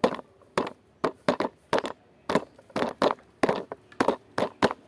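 A series of sharp, irregular knocks or clicks, about two to three a second, each with a short ring.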